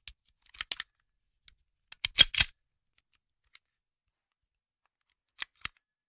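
Metallic clicks and clacks of a revolver being handled, in short groups: a few quick clicks about half a second in, a louder cluster of clacks around two seconds, a lone click, then two more clicks near the end.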